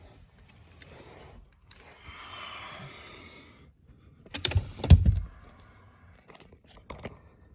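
Handling noise from fitting a new cabin air filter into its housing: faint rustling and scraping, then a quick cluster of loud knocks about five seconds in, and a few light clicks near the end.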